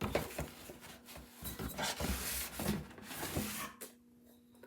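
Rustling and scraping of packaging as a small chalk board is pulled out of its box, with a few sharp knocks, dying away about a second before the end.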